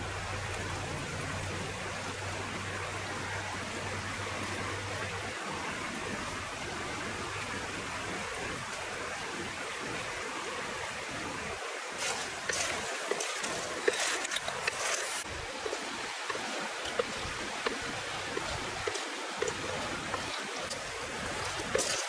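Steady rushing of a stream, with a run of sharp clicks and knocks about halfway through and again near the end from a wooden pestle working fried crickets, chili and garlic in a wooden mortar.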